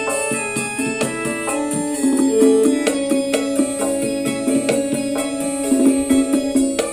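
Music with a keyboard-like melody over a steady beat of clicks, with little bass, played back through a home-built speaker system driven by PAM8403 amplifiers with a self-built crossover, as a sound check.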